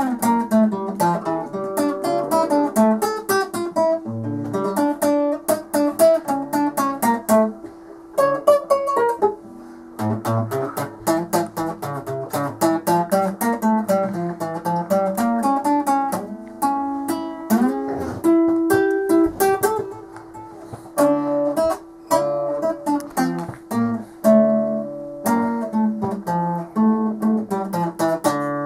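Solo nylon-string classical guitar played fingerstyle: a run of plucked melody notes over bass notes, with one note ringing on underneath and short breaks between phrases.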